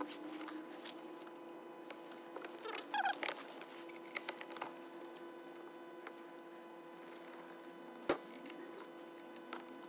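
Small metallic clicks and scrapes from hands and a wrench working on a forklift pedal and brake linkage. There is a brief squeaky scrape about three seconds in and a sharp metal click about eight seconds in, over a steady hum.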